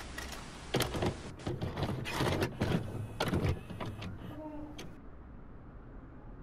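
Brush scraping in a cup of white coating and brushing over the back of a punch-needle rug's cloth: a run of scratchy strokes with small knocks, dying away after about four seconds.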